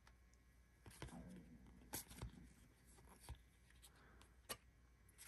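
Faint handling of a stack of baseball trading cards: a few soft clicks and slides as cards are pushed off the top of the stack one at a time, with near silence between.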